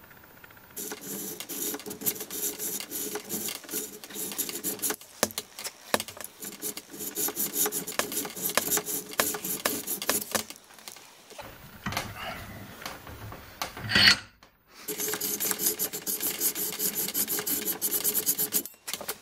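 Hacksaw blade sawing back and forth in quick regular strokes along a line in thin sheet steel held in a vise, grooving the fold line so the metal will fold flat. The sawing breaks off for about three seconds past the middle, with one brief loud noise, then starts again.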